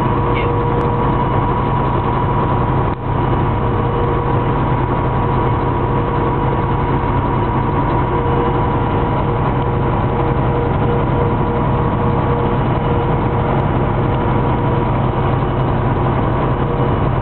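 Engine and road noise of a large vehicle cruising at highway speed, heard inside its cab: a steady low rumble with a constant whine on top, dipping briefly about three seconds in.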